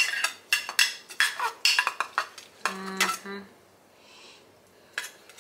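A metal knife blade stirring a wet citrus herb rub in a bowl: quick clinks and scrapes against the bowl, dense for about three seconds and then sparser.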